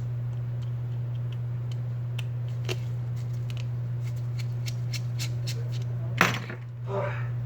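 Small, sharp clicks and ticks of a repair tool working on a smartphone's internal parts, with one louder click about six seconds in, as a flex-cable connector latch is opened. A steady low hum runs underneath.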